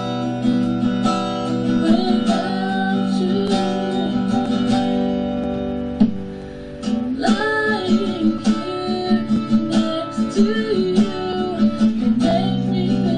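Acoustic guitar being strummed and picked, playing the song's accompaniment at a steady pulse, with a brief drop in level about six seconds in before it picks back up.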